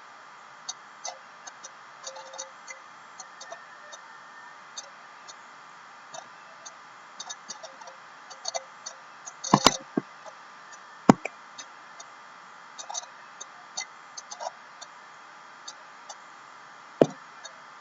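Scattered light ticks and clicks, irregular and a few a second, with a handful of louder sharp clicks around the middle and one near the end, over a faint steady electrical hum.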